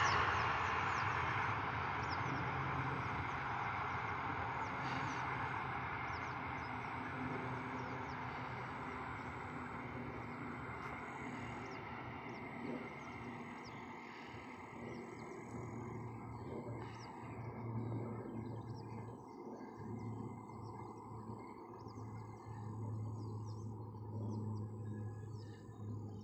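Passing passenger train's rumble fading into the distance over the first ten or so seconds. After that, birds chirp over a low, steady distant hum.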